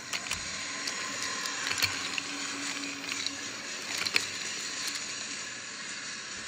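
Wooden toy train cars rolling along wooden toy track: a steady hissy rattle of the wheels, with a few sharp clicks.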